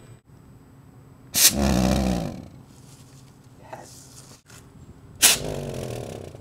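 Jam-jar jet firing in two sudden whooshing roars, each about a second long, the first about a second and a half in and the second near the end, with a faint puff between them.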